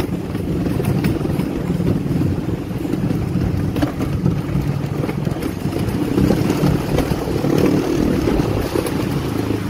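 Wooden roller coaster train running along its wooden track, heard from on board: a steady low rumble and rattle with scattered clacks.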